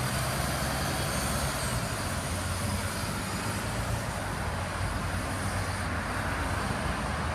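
A bus driving off along the road: a low engine hum, strongest at first and easing off, over steady tyre and road noise.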